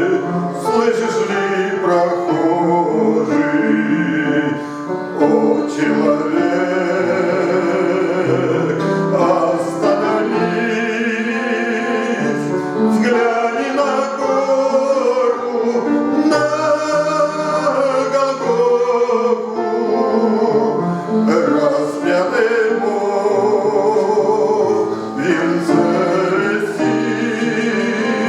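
A man singing a Christian church song over instrumental accompaniment.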